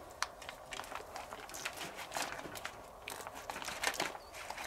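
Plastic packaging crinkling and rustling as a knife slits it open and metal grill tongs lift marinated spare ribs out, with scattered small clicks.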